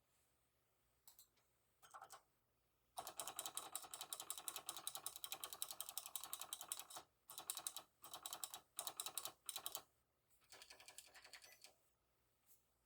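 Mechanical keyboard with Outemo Blue clicky switches, lubed with Krytox 205g, being typed on. A few single keystrokes come first, then a fast run of typing starts about three seconds in, broken by short pauses and easing off near the end.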